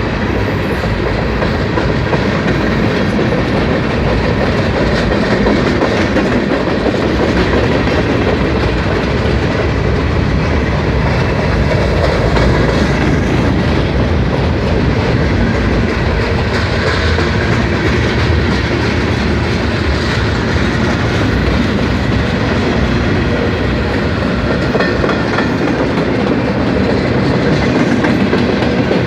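Freight cars of a Norfolk Southern mixed manifest freight train rolling past, a steady loud rolling noise of steel wheels on rail.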